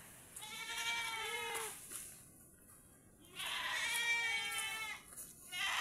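Goats bleating: two long, wavering bleats, the second about three seconds in, with another starting right at the end.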